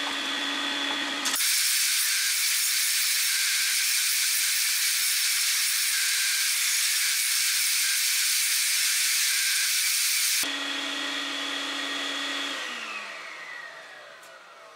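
Vacuum cleaner (Hoover) running with a steady whine. A loud rushing hiss of air drowns it out for about nine seconds. Near the end it is switched off, and the whine falls in pitch as the motor winds down.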